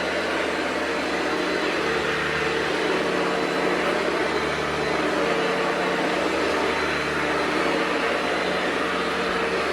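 Hoover Convertible U4345 upright vacuum cleaner running steadily, a constant motor hum under a broad whooshing rush of air.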